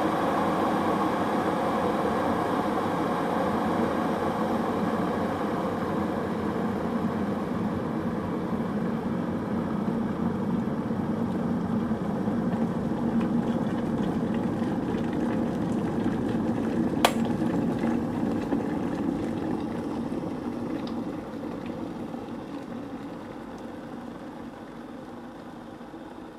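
Kettle boiling: a steady rolling rumble of water at the boil, with a single sharp click about two-thirds of the way through, after which the boiling dies gradually away.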